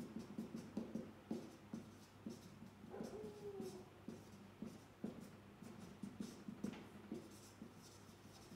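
Marker pen writing on a whiteboard: a run of short, faint strokes and taps, with a brief squeak of the tip about three seconds in.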